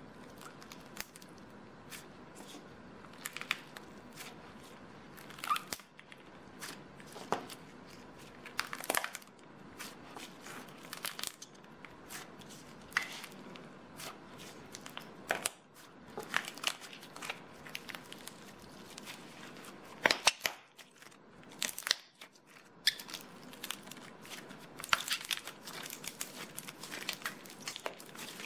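Glossy slime with soft clay pieces being kneaded and squeezed by hand, giving irregular sticky clicks and pops, the loudest about two-thirds of the way through.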